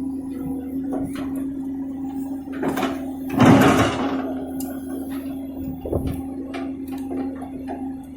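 Komatsu PC200 hydraulic excavator working, with a steady hum from its engine and hydraulics and scattered knocks and clanks. A loud rushing, scraping noise comes about three and a half seconds in and lasts under a second.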